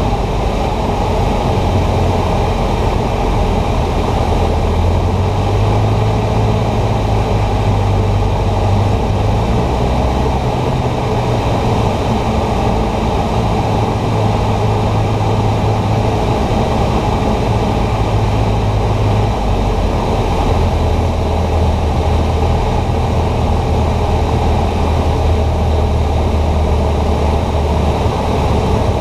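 Cessna 150's four-cylinder Continental O-200 engine and propeller running steadily at reduced power on final approach, heard from inside the cabin. The engine's low drone drops in pitch about two-thirds of the way through as power comes back for landing.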